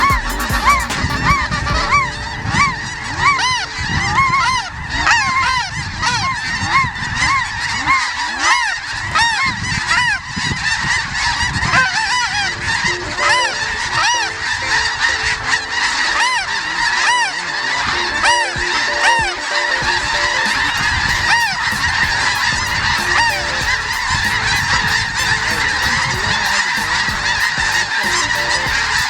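A large flock of snow geese calling all at once: a dense, unbroken chorus of short, high honks.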